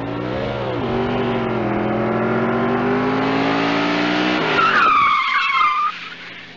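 A car engine accelerating, its pitch climbing steadily for about four seconds, then a tyre screech lasting about a second and a half as the engine drops away.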